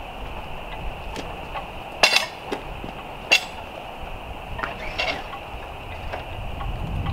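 Long thin battens clattering and knocking against the metal arms of a miter saw stand as they are laid across it. A sharp clatter comes about two seconds in, a single knock about a second later, and lighter knocks near the five-second mark.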